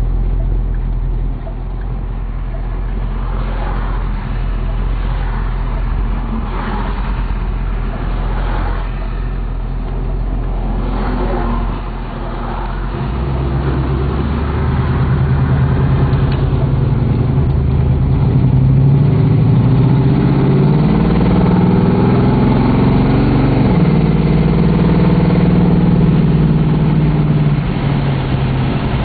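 Pontiac Firebird engine heard from inside the cabin while driving. It runs steadily at first, then pulls harder about twelve seconds in, its pitch climbing, dipping once and climbing again before it eases off near the end.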